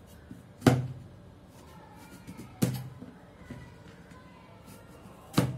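Three sharp knocks on a wooden cutting board, about two seconds apart, as raw green mango is cut and the pieces are added to the pile.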